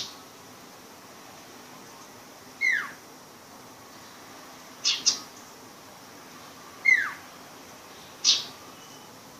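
Sirpu bird at the learning stage giving short, separate calls: sharp high chips, one of them doubled, alternating with quick downward-sliding notes, a second or two apart.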